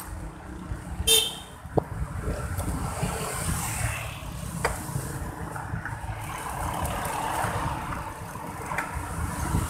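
Steady wind and road noise from riding a bicycle through city traffic, with a brief vehicle horn toot about a second in and a couple of sharp knocks.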